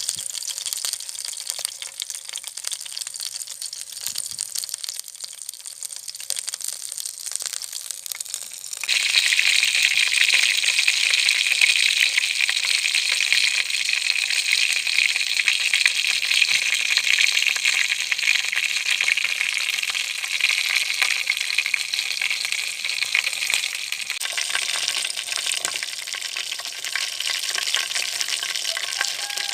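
Chicken frying in hot oil, a steady sizzle and crackle. It is soft at first and about nine seconds in suddenly gets much louder.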